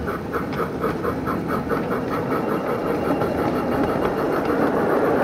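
Battery-electric ride-on model steam locomotive and its train rolling downhill on track, coasting without throttle on the brakes. A rapid even beat of about five a second runs over a rumble that grows louder as the train gathers speed.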